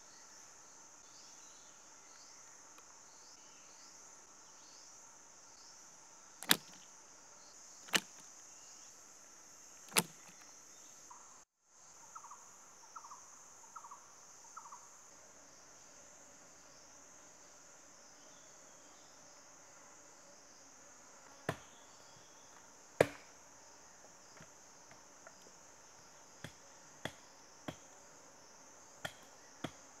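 Steady high-pitched insect chorus, broken by a handful of sharp knocks: three loud ones in the first ten seconds, two more past twenty seconds and lighter taps near the end. A short run of four quick chirps comes a little after twelve seconds.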